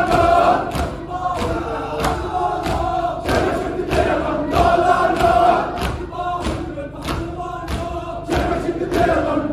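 A crowd of men chanting a noha in unison, with rhythmic chest-beating (matam) slaps landing together about twice a second.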